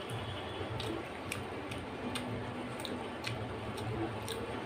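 Mouth clicks and wet smacks of chewing, a sharp click every half second or so at an uneven pace, over a steady low hum.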